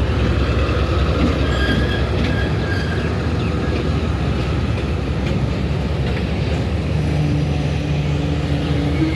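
Passenger train hauled by a ZCU-30 diesel-electric locomotive running through the station: a loud, steady rumble of wheels on rails with faint wheel squeal early on. A steady low hum joins about seven seconds in.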